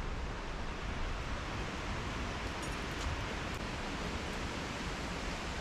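Steady wind noise rumbling on the microphone, with a few faint ticks near the middle.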